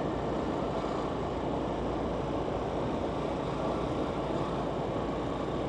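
Steady road noise of travelling along a quiet city street: even engine and tyre noise with no sudden events.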